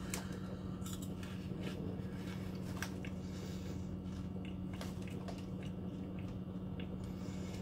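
A person chewing light, airy puffed snacks (Pringles Mingles), with faint crunches scattered through, over a steady low hum.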